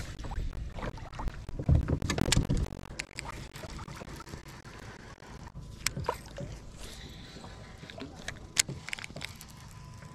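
Kayak paddle knocking against the hull with water sloshing for the first couple of seconds, then the quieter swish and sharp clicks of a baitcasting rod and reel being cast and reeled in.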